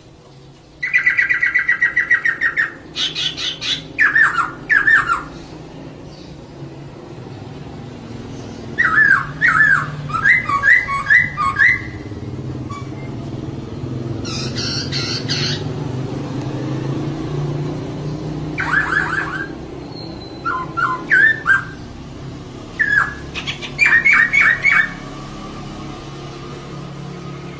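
Female laughingthrush (poksay) calling in about six separate bursts of quick chattering and trilled notes, with pauses between them. A steady low hum runs underneath.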